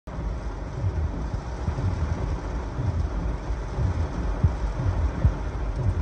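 Heavy thunderstorm rain pelting a car's roof and windshield in gusty wind, heard from inside the car, a steady wash of noise with irregular low thumps every second or so.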